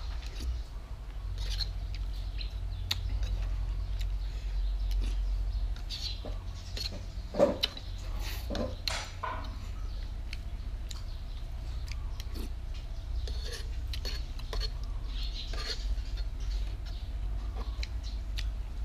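A spoon scraping and clinking against a non-stick frying pan as porridge is scooped out and eaten, in scattered short strokes with one louder clink about seven seconds in. A steady low hum runs underneath.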